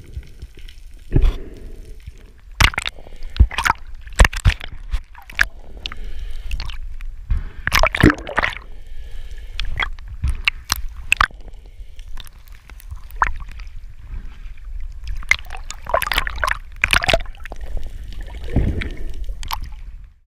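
Water sloshing, gurgling and splashing around a camera at the sea surface, with irregular sharp knocks and splashes over a low rumble.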